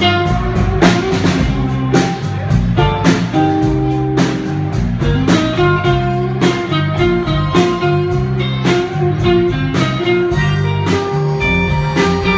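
Live blues band playing: single-note electric guitar lines from a hollow-body electric guitar over a walking bass and a steady drum-kit beat.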